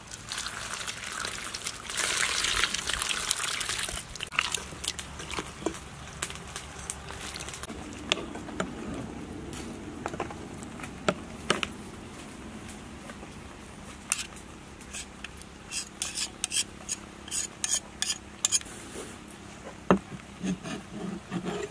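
Water pours over a hollowed-out wax gourd and splashes into a metal basin for the first few seconds. Later comes a run of quick clicks and scrapes as a spoon packs filling into the gourd.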